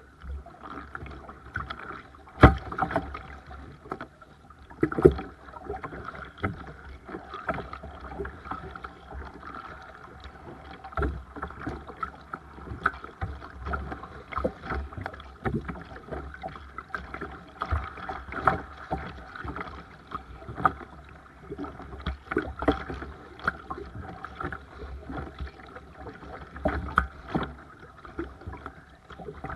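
Seabird Discovery sea kayak being paddled: the blades dip and splash, and water slaps against the hull with irregular knocks about once a second. The loudest knocks come about two and a half and five seconds in.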